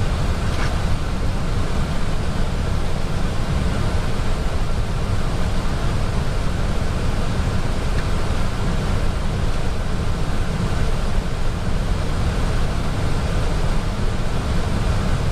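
Steady rushing noise of airflow and cabin air on an Airbus A320 flight deck during descent. The noise is even and unbroken, deepest in the low end.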